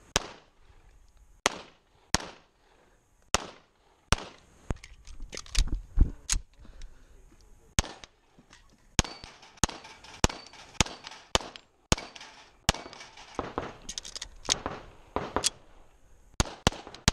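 Rapid pistol fire from an STI Trojan single-stack in .40 loaded to major power factor, about twenty shots, many in quick pairs with short pauses between strings. A brief low rumble about five seconds in, as the shooter moves to a new position.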